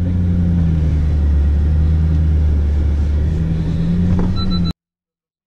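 Mercedes-AMG G63's twin-turbo V8 pulling at a low, steady engine speed of about 1200 rpm in low range, a deep drone as it crawls up a steep incline. It shifts slightly in pitch a little after three seconds and cuts off suddenly near the end.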